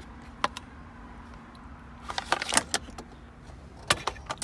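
Scattered small metallic clicks and rattles of shifter parts and tools being handled: two light clicks near the start, a quick cluster about two seconds in, and a few more near the end. A faint steady hum sits under them.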